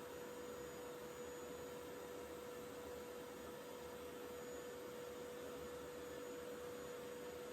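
Revair reverse-air hair dryer running, its suction motor giving a faint, steady hum.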